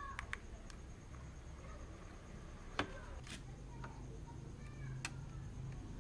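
Scattered sharp clicks and knocks of hand work on a washing machine, the loudest a little before the middle, over a low steady hum.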